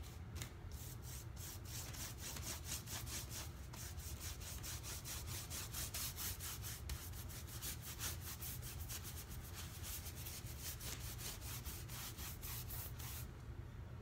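Stencil brush swept rapidly back and forth over a mylar stencil laid on a wood floor, brushing at about five strokes a second, stopping near the end.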